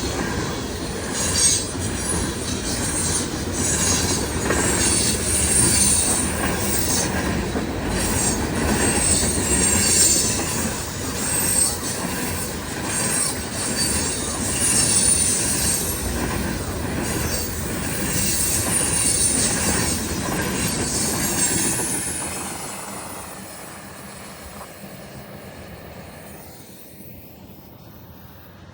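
Train rolling past, its wheels clattering over the rail joints and squealing high-pitched against the rails. About 22 seconds in, the noise falls away as the end of the train passes and recedes.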